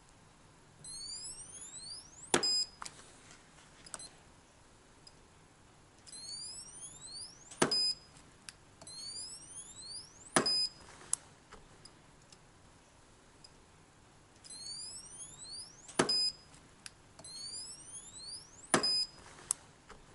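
K-Weld battery spot welder welding nickel fuse strip onto 18650 lithium cells through handheld copper probes, set to 15 joules: five sharp snaps as the weld pulses fire, each followed by a short electronic beep. Runs of quick rising electronic chirps come before most of the welds.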